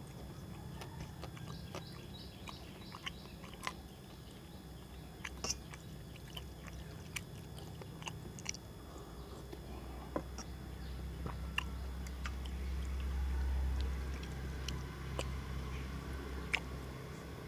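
Eating by hand from a steel plate: scattered small clicks and taps of fingers and a small steel bowl against the plate while dal is poured over rice and mixed in, with some chewing. A low rumble runs underneath and swells about three quarters of the way through.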